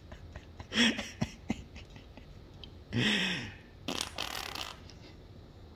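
A baby blowing wet raspberries through the lips, three spluttering bursts, the longest and loudest about three seconds in.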